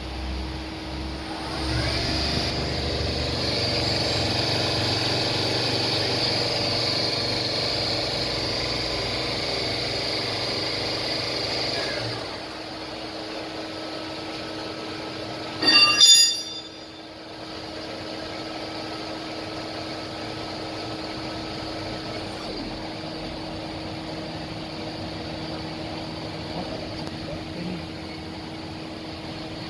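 Mugatech TT-60 CNC lathe running: a steady machine hum with a whine. It steps up louder about two seconds in and drops back about twelve seconds in. A brief loud burst with several tones comes about sixteen seconds in.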